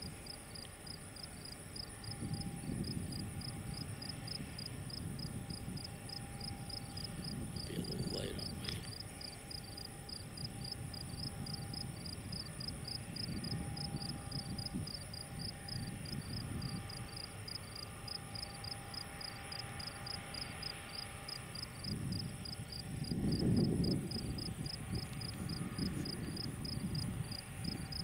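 Insects chirping steadily in a fast, even pulsing rhythm, with a second thin high trill above it. Under them a low rumble swells and fades, loudest near the end.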